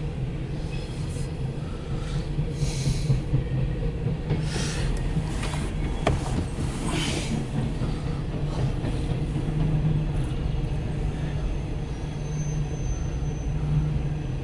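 Empty coal train's hopper cars rolling past: a steady low rumble with a few rushes of wheel and rail noise in the first half, and a faint high wheel squeal near the end.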